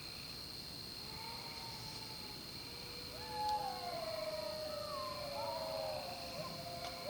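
Several canines howling together, long wavering howls that glide up and down in pitch and overlap one another. They begin about a second in and swell louder midway, over a steady high-pitched drone.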